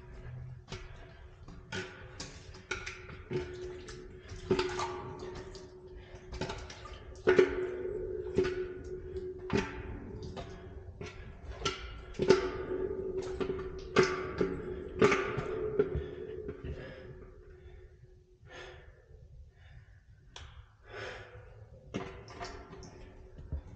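Irregular knocks and thunks echoing inside a concrete pipe, with a steady hum that comes in a few seconds in and drops away about two-thirds through.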